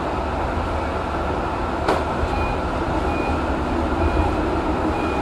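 SNCV interurban tram running along street track, heard from the driver's cab: a steady rumble of wheels on rail and traction equipment, with one sharp click about two seconds in. From then on a faint high beep repeats about once a second.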